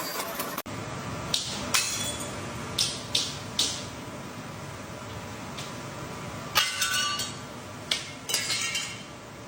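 A series of sharp clinks and taps, about eight in all and irregularly spaced, over a steady low hum.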